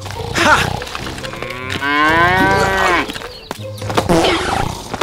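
Cow mooing: one long moo about two seconds in, rising then falling in pitch, with scattered knocks around it.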